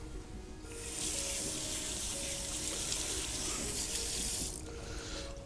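Kitchen tap running into a sink for about four seconds, starting about a second in and shut off near the end.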